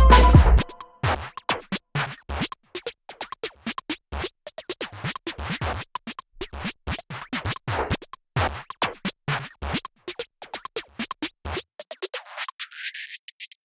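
Electronic background music breaks down to a sparse passage of short, sharp clicks and scratch-like hits, several a second at uneven spacing, with the bass cut away near the end.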